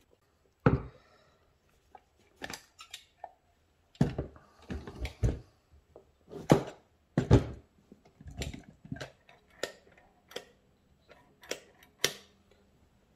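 Intermittent clicks, clinks and knocks of hand work on a Rochester 4GC four-barrel carburetor: a screwdriver on the choke housing and the metal carburetor body and small parts handled and set down on the bench. The loudest knocks come about a second in and in a cluster near the middle.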